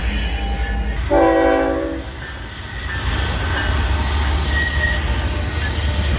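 Train passing with a steady low rumble and rail noise; the locomotive's multi-chime horn sounds one short blast about a second in.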